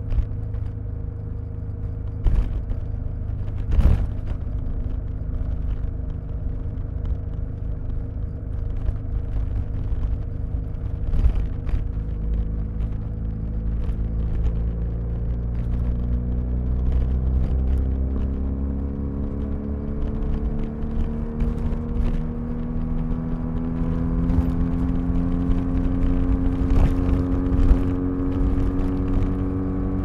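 BMW R1250RS's boxer-twin engine running on the road, picked up by a recorder inside the rear seat bag. The note holds steady for about the first half, then climbs slowly in pitch as the bike gains speed. There are a few sharp knocks early on.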